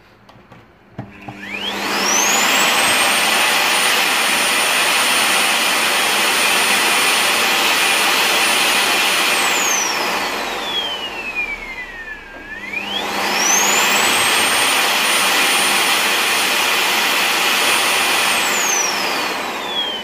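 Siemens X6.0 Extreme Power vacuum cleaner motor on a test run during reassembly, its upper housing still off. It spins up with a rising whine to a steady high whine, is switched off about nine seconds in and winds down with a falling whine, then is started again, spins back up, and winds down once more near the end.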